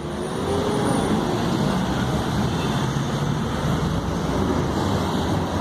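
Steady road traffic noise: motor vehicles running past.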